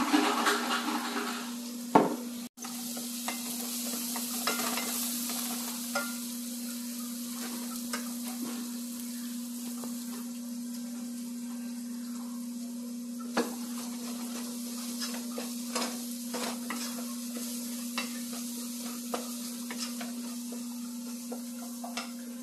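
Chopped aromatics and spices sizzling as they fry in oil in a nonstick saucepan. A wooden spoon stirs, scrapes and taps against the pan and spice jar now and then, with a sharp knock about two seconds in, over a steady low hum.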